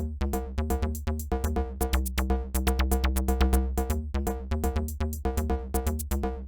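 Background electronic music: a quick, even run of synth notes over a steady bass beat.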